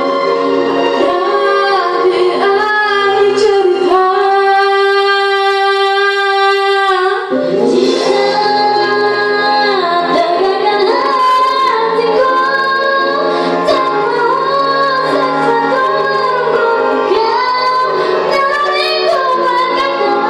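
Female voices singing a song over musical accompaniment, with one long held note about four seconds in before the melody moves on.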